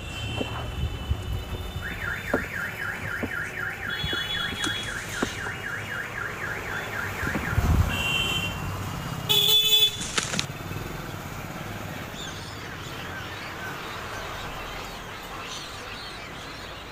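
A rapid, regular warbling electronic alarm tone sounds for about five and a half seconds, among scattered knocks. A loud, harsh burst of noise comes about nine seconds in, and steady rustling noise follows.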